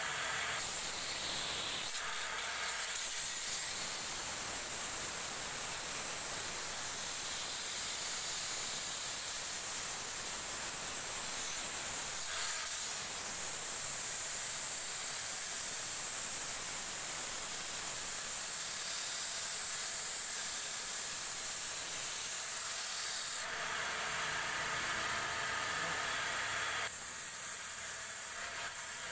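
Wood lathe spinning a turned wooden bed leg while it is sanded by hand against the turning wood, a steady hiss that grows brighter for a few seconds near the end.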